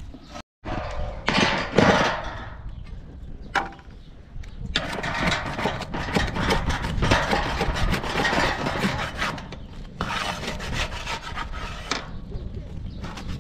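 Metal spatula scraping and rubbing across a metal griddle tray as acorn flatbreads are pushed and turned over a wood fire, heaviest from about five to ten seconds in.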